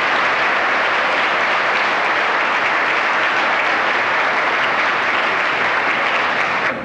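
Loud, steady applause from a large audience, ending suddenly near the end.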